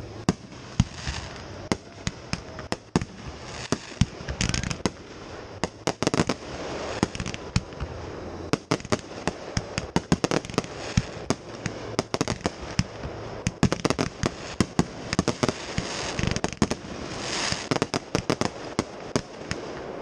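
Fireworks display: aerial shells and firecrackers going off in a rapid, irregular string of sharp bangs and pops, some in quick clusters, with stretches of hiss between them.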